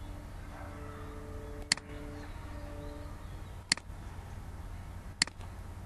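Three sharp computer mouse clicks, the second about two seconds after the first and the third a second and a half later, over a steady low hum. A faint sound of several held tones runs through the first half.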